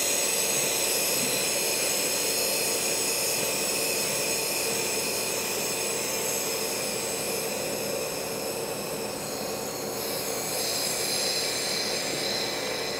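Pressurised nitrogen gas hissing out of the opened vent valve on a liquid nitrogen supply dewar, a steady hiss with faint high whistling tones that slowly fades as the dewar's pressure is released to stop the transfer.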